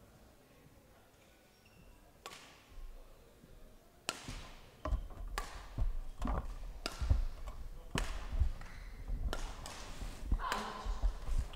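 Badminton rally: racket strings hitting a shuttlecock about once a second, with players' feet thudding on the court. The strikes start about four seconds in, after a quiet start and a single earlier hit.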